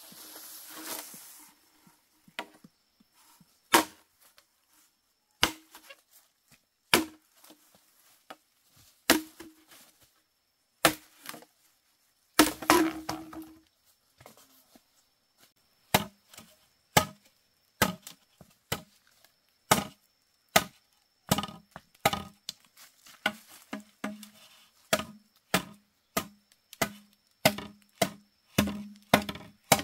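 Repeated chopping strikes, a blade biting into wood. Spaced single blows come about every second and a half at first, with a longer crunching split about halfway through. After that the blows come quicker, about one a second.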